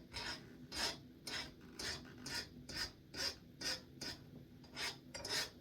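A file drawn in short strokes across the edge of a freshly oil-quenched steel knife blade forged from a concrete drill bit, about two strokes a second with a bright, high scrape. The file skating over the edge instead of biting shows the blade has hardened properly.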